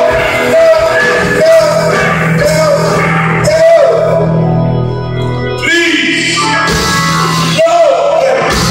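A live rock band playing organ, drum kit, congas and electric guitar under sung vocals, heard from the audience in a large hall.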